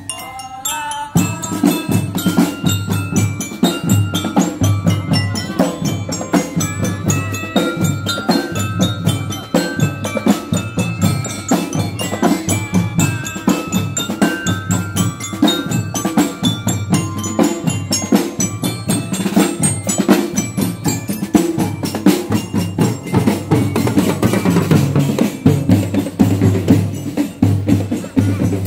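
Marching drum band playing: metal-bar mallet instruments ring out a melody of short struck notes over a steady beat of bass drums and marching drums.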